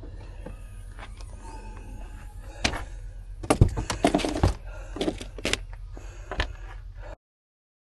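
A series of short knocks and clicks, most of them about halfway through, over a low steady hum, then the sound cuts off abruptly.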